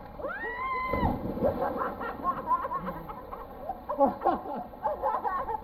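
A man jumping into a swimming pool: a high, arching yell, then a splash as he hits the water about a second in. Voices follow.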